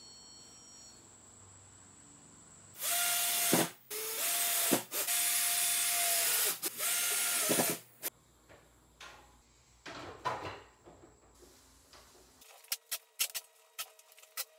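Handheld cordless drill running in several bursts with brief stops, working through the holes of a metal wall bracket. A few sharp clicks and taps follow near the end.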